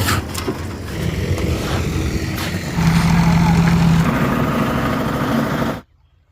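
A heavy vehicle's engine running loudly, with a steady hum through the middle, cutting off abruptly near the end.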